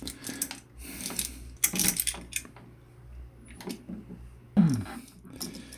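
A wall light switch and its wires being handled: scattered small metallic clicks, rattles and short scrapes.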